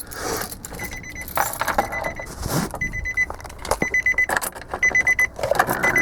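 Nissan truck's key-in-ignition warning chime beeping about once a second, each beep a quick run of pulses, with the keys jangling in the ignition.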